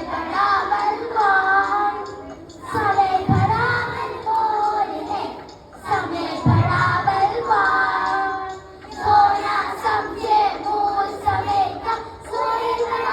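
Children singing a song in short phrases with brief pauses between them. Two low thumps come about three seconds in and again near the middle.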